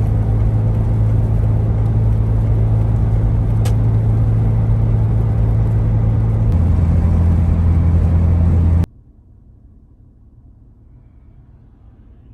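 Car running along the road, heard from inside the cabin: a loud, steady engine and road drone that steps down in pitch about six and a half seconds in. It cuts off abruptly near the end, leaving only a faint background hiss.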